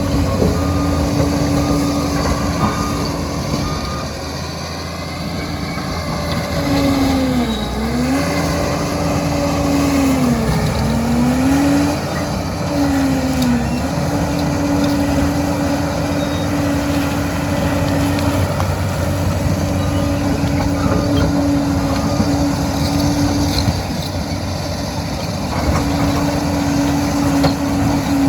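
Liebherr PR 746 crawler dozer working, its engine running steadily with a loud whine that briefly drops in pitch and recovers three times around the middle and again near the end.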